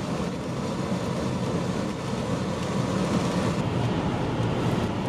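Steady road noise inside a moving car's cabin: tyres running on wet pavement under the engine's low drone.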